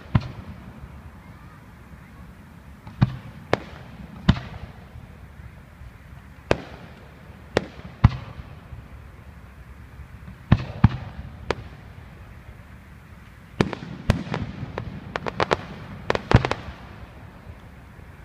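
Aerial fireworks bursting overhead: single sharp bangs at irregular intervals of a second or more, then a quick run of several cracks in a row near the end.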